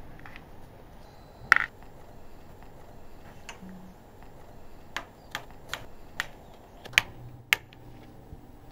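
A sharp click about a second and a half in, then six short clicks about every half second in the second half: a plastic Trivial Pursuit pawn tapped space by space along the game board.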